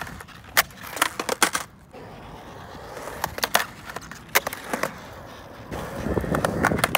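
Skateboard rolling on a concrete bowl with a run of sharp clacks as the trucks hit and stall on the coping during an axle stall to fakie. A louder rolling rumble from about six seconds in as the board comes back down the transition.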